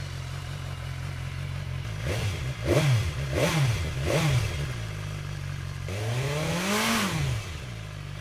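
BMW S 1000 XR inline-four engine running through a LeoVince Factory S carbon slip-on exhaust with its dB-killer baffle still fitted, not yet warm after a cold start. It idles steadily, is blipped three times in quick succession, then revved once more slowly and longer near the end.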